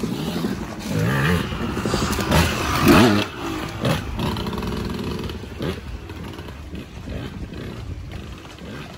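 Off-road motorcycle engine running and revving, its pitch rising and falling, with the loudest surge about three seconds in, then settling lower and fading toward the end.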